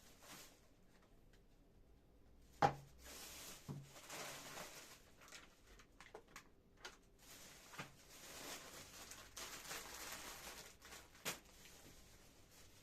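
Household handling sounds: a sharp knock about two and a half seconds in, a few softer knocks later, and soft rustling between.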